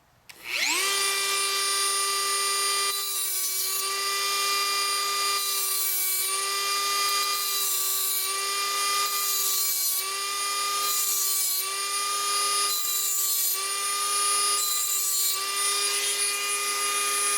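Dremel rotary tool with a cutting wheel spinning up to a steady high whine, then grinding teeth into the tip of a brass tube in a series of short rasping cuts about every second or two. The whine dips slightly in pitch each time the wheel bites.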